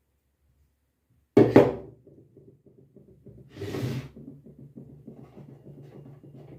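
A bike horn being handled: about a second and a half in, a sharp double knock as it is set down on a hard surface, rings briefly. After that comes a scraping rustle, then faint rapid ticking and rattling over a low hum.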